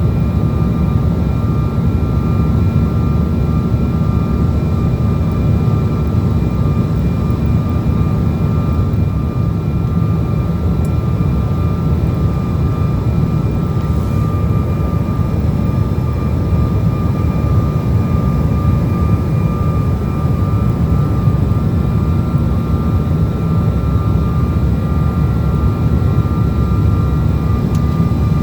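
Steady airliner cabin noise from jet engines and airflow: a dense low rumble with a few thin, steady high whines above it.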